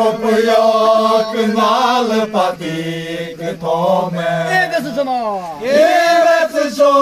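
A group of men singing together in unison, holding long drawn-out notes, with a swooping slide down and back up in pitch about five and a half seconds in.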